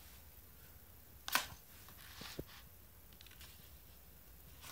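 Quiet room tone with one short, sharp click about a second in and two faint ticks a second later.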